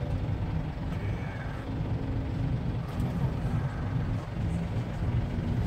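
Steady low rumble of a vehicle's engine and road noise, heard from inside the cabin while moving in slow traffic.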